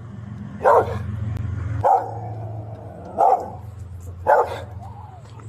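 A dog barking four times, single short barks about a second apart.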